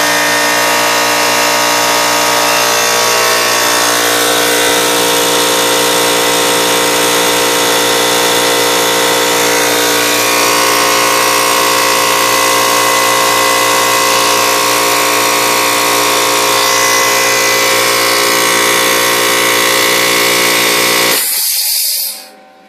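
Electric upright air compressor running as it pumps up its tank: a loud, steady motor-and-pump drone with a whine. It cuts off suddenly near the end, as the tank reaches about 170 psi and the pressure switch shuts it off.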